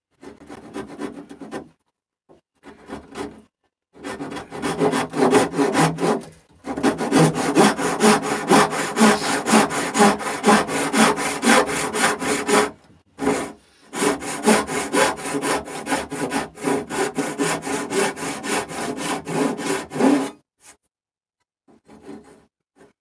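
Fine-toothed dovetail saw (18 points per inch) hand-cutting a dovetail tail in birch: light starting strokes, then steady back-and-forth strokes in runs of several seconds. The runs are broken by brief pauses, and the sawing stops about 20 seconds in.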